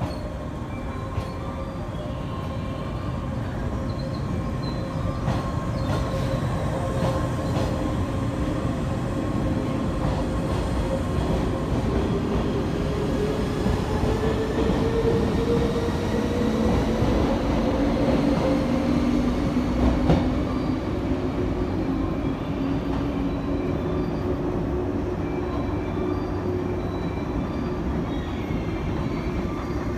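Train running through a station: a steady low rumble with motor tones that slowly rise in pitch through the middle, and a single sharp knock about two-thirds of the way through.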